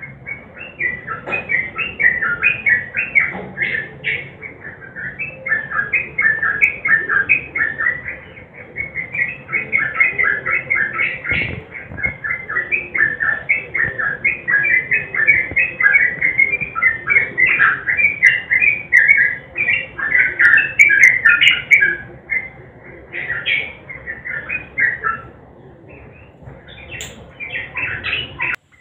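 Yellow-vented bulbul singing a long, rapid run of chattering, bubbling notes, pausing briefly near the end before starting up again.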